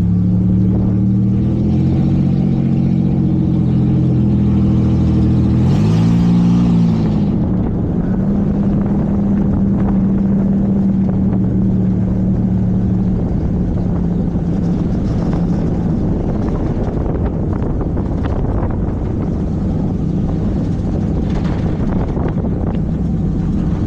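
Race car engine heard from inside the cockpit, running steadily at low speed. About six seconds in it revs briefly up and back down. It then holds a steady note that turns rougher and noisier in the last several seconds.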